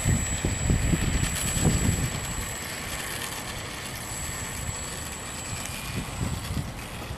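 Electric RC airplane's brushless motor (Power 32) and propeller whirring steadily as the model taxis out on the ground. Wind rumbles on the microphone during the first couple of seconds.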